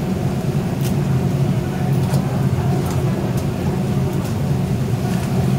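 Steady low machine hum that runs unbroken, with a few faint light clicks and taps over it.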